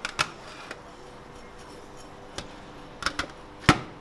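Sharp clinks and knocks of food and utensils being handled in stainless steel trays at a topping counter. A few scattered clicks come first, then three in quick succession near the end, the last the loudest.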